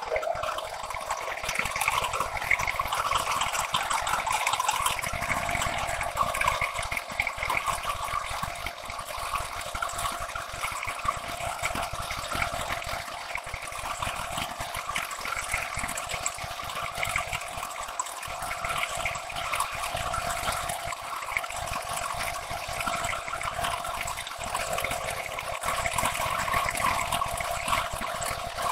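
Face-milling cutter on a metal planer mill cutting along a long metal bar, a steady spraying hiss of the cut and flying chips with a faint steady tone underneath.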